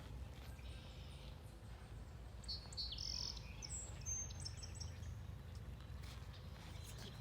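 Wild birds chirping, with a cluster of short high calls in the middle, over a steady low rumble.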